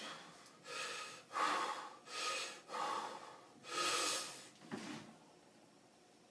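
A weightlifter's forceful breathing while holding a loaded barbell at arm's length before a bench-press rep: five sharp, loud breaths about one every 0.7 seconds, then a shorter, weaker one near five seconds in.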